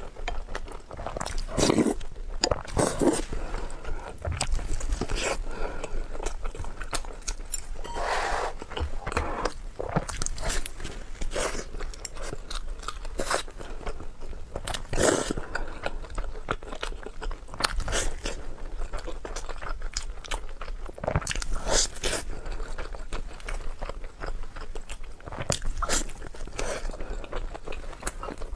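A person eating close to the microphone: irregular crunchy bites and chewing, with sharp crackles every second or so.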